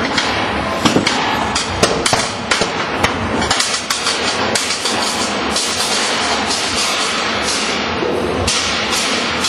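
Small combat robots knocking and clattering against each other and the floor: a rapid string of sharp knocks, thickest in the first few seconds and sparser after, over a steady noisy din.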